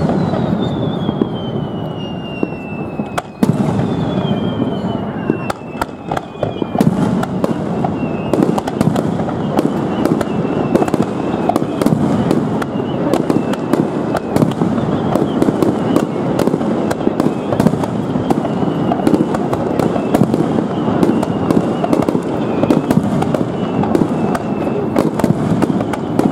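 A fireworks display: aerial shells and ground fountains going off in a rapid, overlapping run of bangs and crackling that grows denser from about seven seconds in. Over the first seven seconds, thin high tones slide slowly down in pitch.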